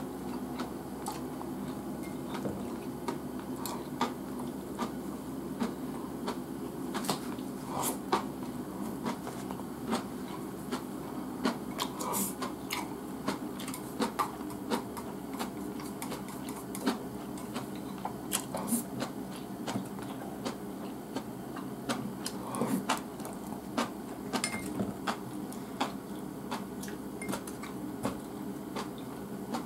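Eating sounds: chopsticks clicking irregularly against a rice bowl while rice is shovelled in and chewed, over a steady low hum.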